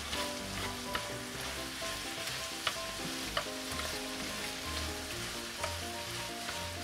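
Stir-fried food sizzling steadily in a hot frying pan as it is stirred and reheated, with a few sharp clicks from the stirring.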